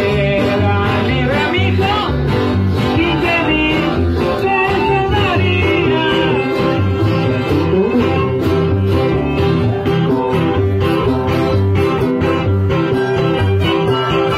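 Live violin and requinto guitar playing dance music, the violin's melody gliding over a steady plucked-string beat.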